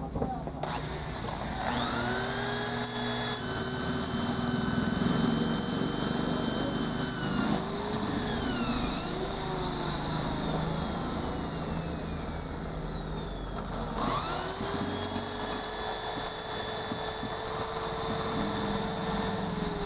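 Handheld electric drill boring into a Honda TMX 155 engine block to open up a stripped cylinder-head stud hole. The motor starts about a second in and runs under load, its pitch sagging and recovering as the bit bites; it eases off near twelve seconds in, then starts again sharply about fourteen seconds in.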